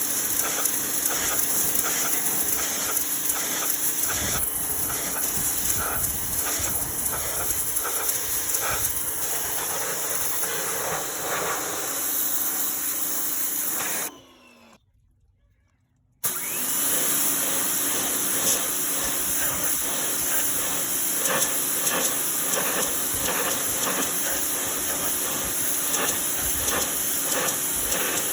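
Pressure washer spraying: a loud steady hiss of the water jet over a steady motor hum. About fourteen seconds in it winds down and stops, and after about two seconds it starts again.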